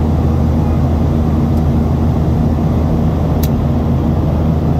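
Steady cabin drone of a Boeing 737-700 in flight, heard from a window seat over the wing: the hum of its CFM56-7B turbofans mixed with airflow noise, deep and even. One faint click a little after three seconds in.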